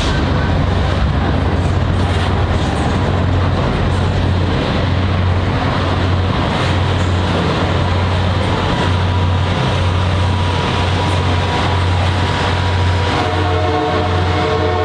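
CP Holiday Train's diesel locomotive and cars rolling into the rail yard: a loud, steady rumble of engine and wheels on the rails. About 13 seconds in, the locomotive's multi-tone air horn begins to sound.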